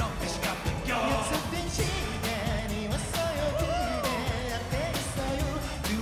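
Korean pop song performed live: a male voice sings the melody over a backing track with a steady beat.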